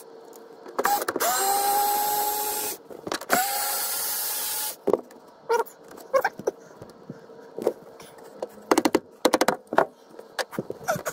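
Cordless drill-driver running in two bursts of about two seconds each, the motor's pitch rising as each starts. After them comes a string of light knocks and clicks as the timber is handled.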